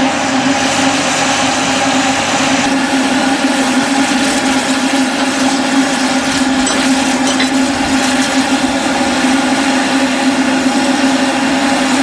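Miniature steam locomotive No. 24, a 15-inch gauge 2-6-2, standing at the platform with steam hissing steadily from it and a constant humming tone running through the hiss. The high part of the hiss drops a little about three seconds in.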